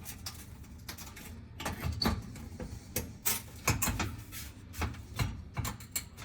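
Irregular knocks, clicks and light rattles of a range's metal panel being handled and fitted into place.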